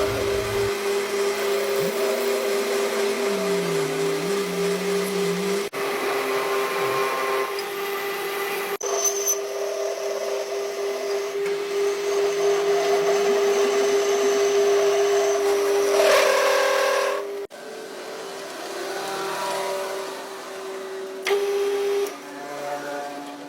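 Electric power tool running with a steady motor hum, in several short takes with abrupt cuts between them.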